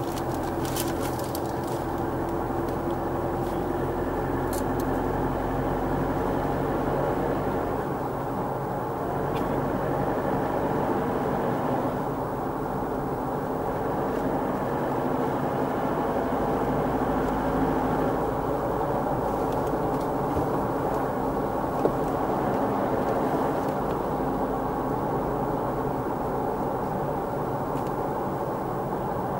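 Steady drone of a car's engine and tyres on the road, heard from inside the cabin while cruising at an even highway speed.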